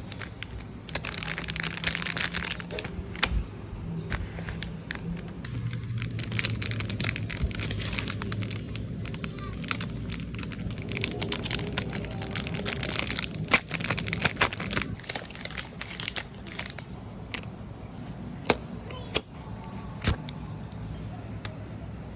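Paper and plastic packaging crinkling and tearing as it is handled, with many short clicks and taps, over a low steady hum.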